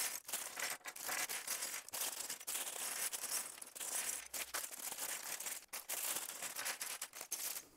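Many small hard plastic bricks and marble-run pieces clattering and clicking onto a wooden tabletop as they are tipped out of their bags, with some plastic-bag rustling.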